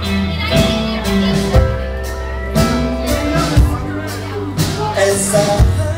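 Live rock band playing: drum hits land about once a second over sustained low bass notes, electric guitar and keyboard.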